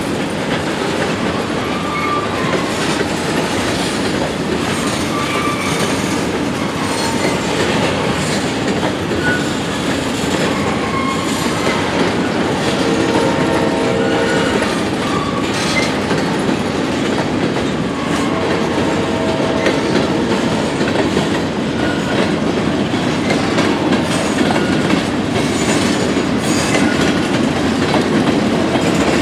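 Empty covered grain hopper cars of a freight train rolling over a grade crossing: a steady rumble and clickety-clack of steel wheels over the rail joints, with a couple of brief whining tones about halfway through.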